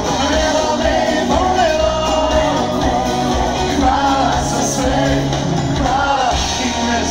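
Live pop band playing loudly, with drums, keyboards and bass under a wavering sung melody.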